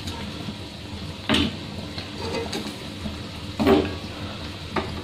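Metal tongs lifting charcoal off a gas burner and setting the pieces into a small steel bowl: two knocks, about a second in and near the end, the second louder, with a few lighter clicks.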